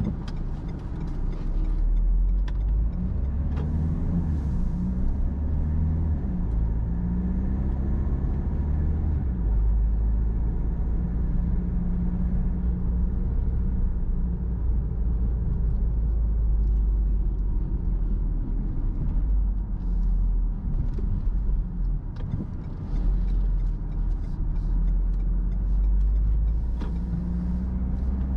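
Car being driven: a steady low rumble of engine and road noise, with the engine note rising and falling as the car speeds up and slows down, and a few faint clicks.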